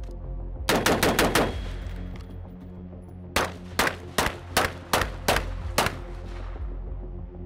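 Gunshots: a fast string of about five shots, then after a pause seven more shots roughly half a second apart, over background music.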